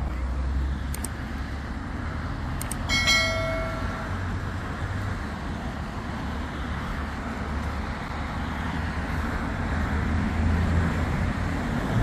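Steady hum of road traffic with a low rumble. About three seconds in comes a brief high-pitched toot, the loudest moment.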